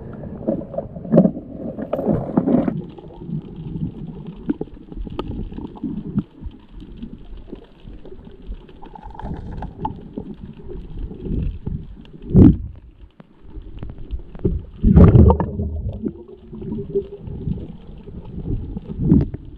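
Muffled underwater rumble and gurgling of water moving around a diver's camera, full of small knocks and bumps, with two louder bursts about twelve and fifteen seconds in.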